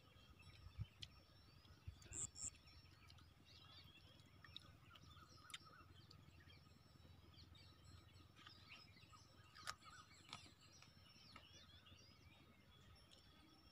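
Faint outdoor ambience with many small birds chirping in the distance throughout, and a few brief soft knocks, one about a second in and one near ten seconds.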